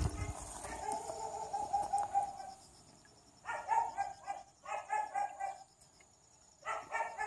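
An animal calling, most likely a dog: three quick runs of short, high yelps in the second half, after a fainter, steadier run of pulsed calls at the start.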